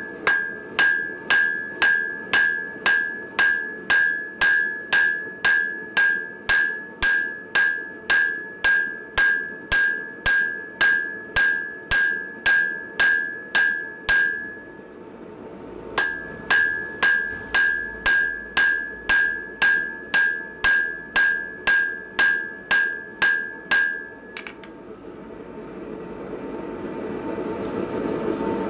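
Hand hammer striking red-hot coil-spring steel on an anvil while forging down a chisel blank. The blows come in a steady rhythm of about two a second, each with a bright anvil ring. The hammering pauses briefly about halfway, resumes, and stops a few seconds before the end, after which a steady rushing noise grows.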